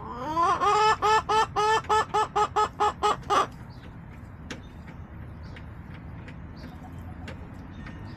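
Chicken calling loudly: a rising note, then a quick run of about a dozen short clucks at an even pitch, about four a second, that stops after about three and a half seconds.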